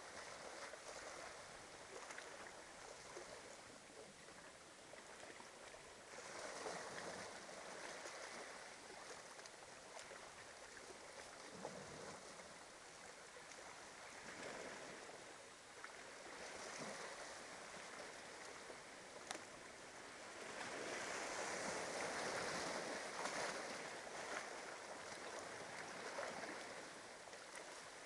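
Small waves washing up a beach: a quiet hiss of surf that swells and fades every few seconds, loudest about twenty to twenty-four seconds in.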